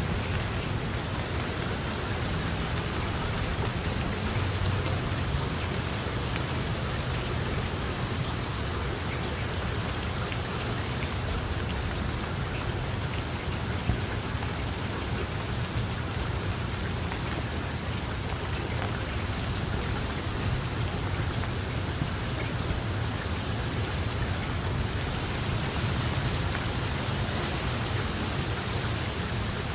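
Steady rain falling: an even, unbroken hiss with a deep rumble underneath.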